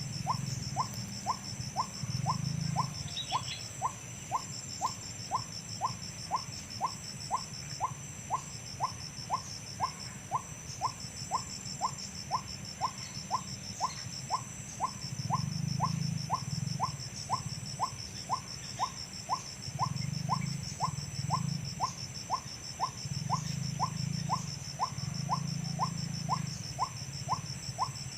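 White-breasted waterhen call played from a lure recording: a short rising note repeated steadily about twice a second, with a high pulsing buzz behind it.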